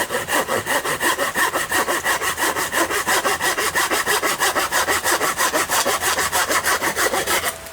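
A Fiskars hand saw with large teeth sawing through a dry branch in fast, even strokes, about seven a second, stopping near the end. The coarse teeth make it go a little hard in dry wood, since the saw is better suited to green wood.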